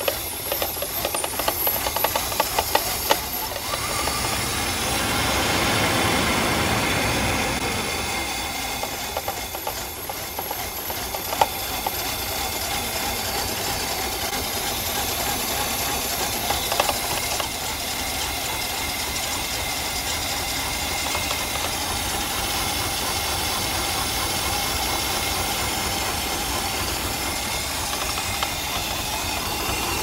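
Mercedes 420SEL's 4.2-litre V8 running with one fuel injector pulled out and spraying into a cup, so that cylinder gets no fuel. The owner blames the car's misfire on a bad KE-Jetronic fuel distributor.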